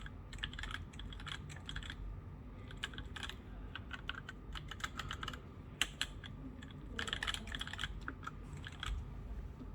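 Mechanical keyboard being typed on in irregular bursts of keystrokes with short pauses, the muted, smooth 'creamy' keystroke sound, with one sharper single click near the middle.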